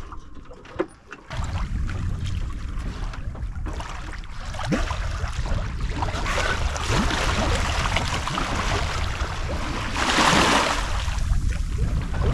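Water rushing and splashing along a sailboat's hull, with wind buffeting the microphone as a low rumble. The water sound swells from about four seconds in and is loudest in a big wash near ten seconds.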